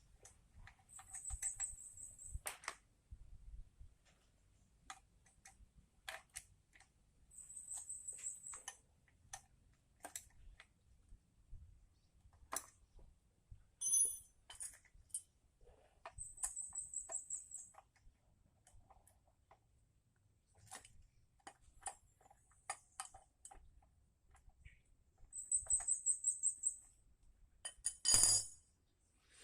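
Scattered light clicks and taps of small carburetor parts being handled, with a sharper clatter near the end. A high, trilling chirp lasting about a second and a half repeats four times, about eight seconds apart.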